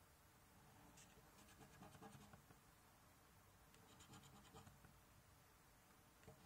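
A VIP Cashword scratchcard's word grid being scratched off: faint, quick strokes in two short bursts, one about a second in and another around four seconds in.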